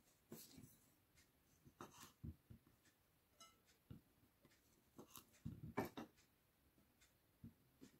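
Faint, scattered knocks and taps of a kitchen knife cutting sausages on a wooden cutting board, the loudest cluster about five to six seconds in.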